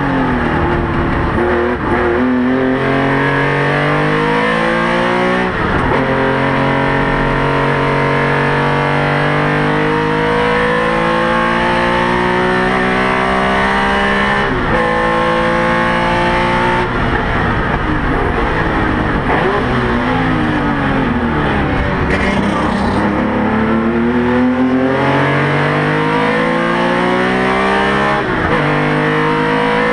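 Porsche 911 RSR's flat-six engine at racing speed, heard from inside the cabin: the revs climb through the gears with a sharp drop at each upshift, fall for a while about two-thirds of the way through as the car slows, then climb again.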